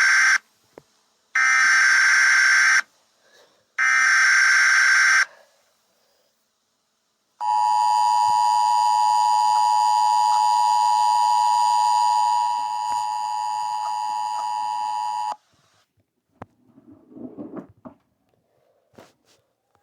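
Emergency Alert System signal: three short buzzing data bursts of the SAME header, then after a pause the steady two-tone EAS attention tone (853 and 960 Hz together), which runs about eight seconds and gets quieter partway through. A few faint noises follow near the end.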